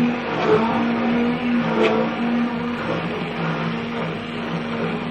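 Electric hand mixer running steadily, beating chantilly cream powder with milk and cocoa until it thickens.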